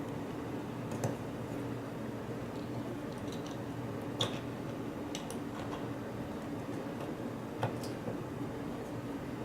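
A few sharp, scattered metallic clicks and taps as a padlock and its tools are handled, over a steady low hum.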